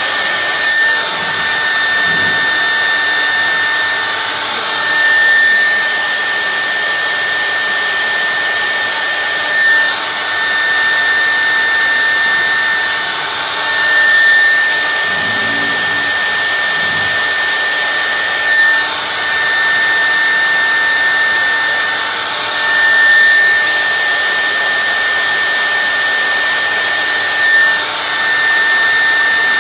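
CNC router spindle running at a steady high whine while cutting wood, with a brief swell and shift in the sound about every four to five seconds.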